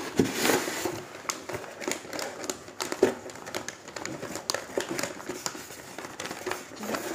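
Newspaper crinkling and rustling as hands unwrap a newspaper-wrapped package, a steady run of small crackles throughout.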